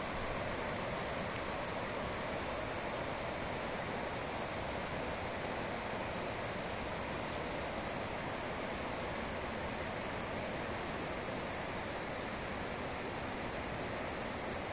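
Steady rushing of a shallow, rocky mountain river, with a high, thin insect trill coming in three stretches of one to two seconds over it.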